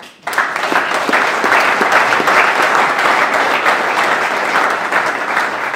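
Audience applauding: many hands clapping at once, breaking out just after the start and holding steady.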